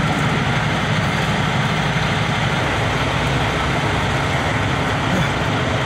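Semi-truck diesel engine idling steadily, a low, even rumble heard from inside the parked cab.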